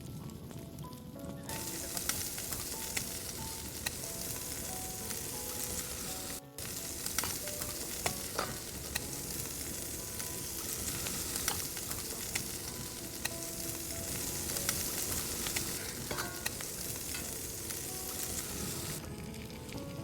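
Duck meat sizzling and spitting over a hot charcoal fire, starting about a second and a half in and dropping out briefly around six seconds in. Soft background music plays underneath.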